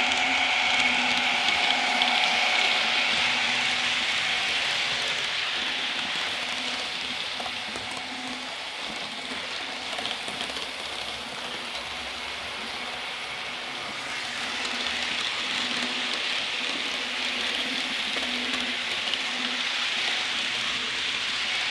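Model trains running on a layout: a steady hiss of wheels rolling on the rails, with a faint humming tone early on that fades within the first few seconds.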